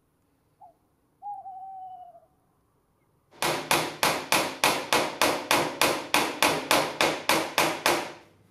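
An owl hoots: one short note, then a longer wavering one. About three seconds in, a fast, even run of about seventeen sharp taps begins, roughly three a second, as the woven cord of a chair seat is beaten tight against the rail with a wooden-handled tool.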